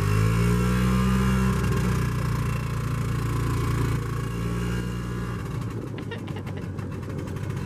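E-Z-GO golf cart's small engine running steadily under throttle as the cart drives along. About four seconds in it drops lower and quieter, and a run of quick clicks comes near the end.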